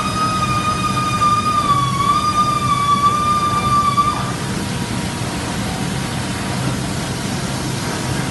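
Chris-Marine portable valve seat lathe running on a diesel generator's valve seat, giving a high steady whine that stops about four seconds in, over a steady low rumble.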